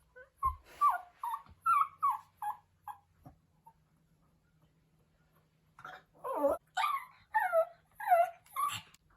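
Pomeranian puppy howling in high, whining cries that fall in pitch: a quick run of short cries, a pause, then a run of longer ones. It is crying at being left apart from its owner.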